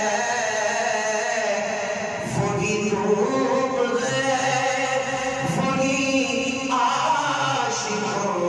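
A man singing an Urdu naat without accompaniment, drawing out long held notes with melodic ornaments and bends between them.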